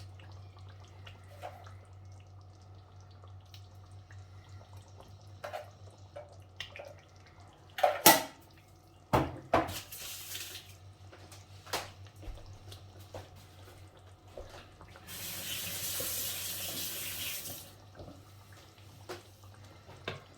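Kitchen sounds at a stew pot: several sharp clanks of a utensil against the pot near the middle, then water running for about two and a half seconds near the end, over a steady low hum.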